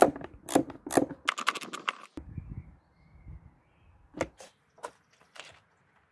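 Hand ratchet clicking as a bolt is screwed in, in quick runs over the first two seconds, then a few single clicks.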